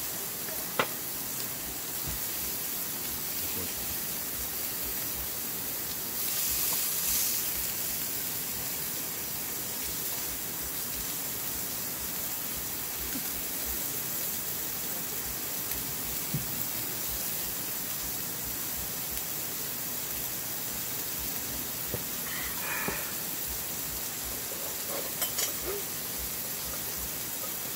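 Cubes of beef, mushrooms and potato slices sizzling on a griddle pan over a portable butane gas stove, a steady hiss with a louder spell about six seconds in. A few light clicks of metal chopsticks against the pan.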